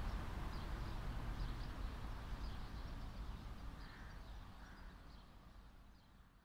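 Outdoor nature ambience: scattered small bird chirps over a low rumble, fading out steadily.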